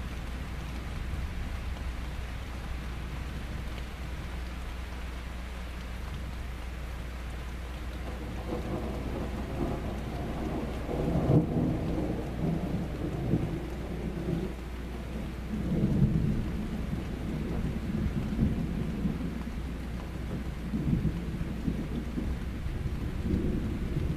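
Steady hiss of rain, then a long roll of thunder that starts about a third of the way in, swells loudest twice, and goes on rumbling.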